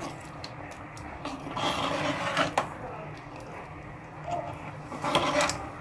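Metal spoon stirring thick groundnut soup in a pot, scraping along the pot with scattered light clicks and knocks against its side.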